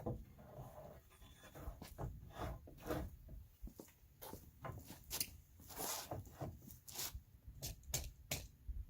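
Irregular clicks, knocks and rustles of hands working a tape measure against a board, with a few breathy, panting-like noises in between.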